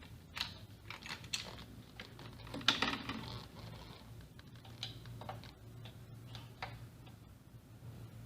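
Screwdriver turning out screws: scattered light clicks and taps, the loudest cluster about three seconds in.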